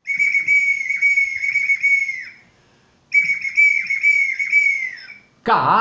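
A small whistle held between the lips, blown in two phrases of about two seconds each: a steady high tone broken by quick downward dips, falling away at the end of each phrase. A man's voice begins right at the end.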